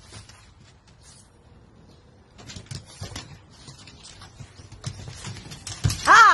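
French bulldog puppy giving a short, high, rising-and-falling whine near the end, preceded by light taps and scuffs.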